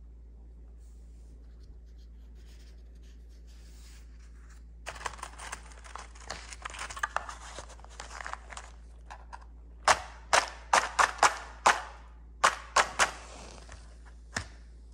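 A matchbox being handled: a few seconds of scratchy rustling, then about nine sharp scraping strikes in quick succession, with one more near the end.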